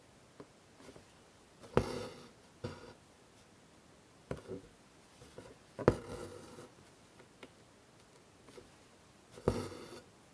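An embroidery needle pricks through hooped fabric and the floss is drawn through with a soft rasping pull, three times about four seconds apart, with small taps and ticks in between.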